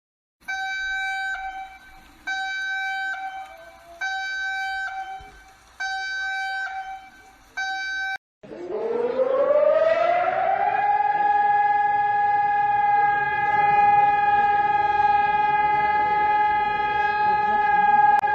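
An alert siren: five short, steady, high tones about two seconds apart, each dying away with an echo. After a break, a civil-defence siren winds up from a low pitch over about two seconds and holds one steady high tone.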